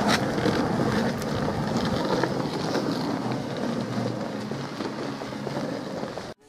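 Longboard wheels rolling over an asphalt lane, a steady rumbling noise with wind on the microphone; it cuts off suddenly near the end.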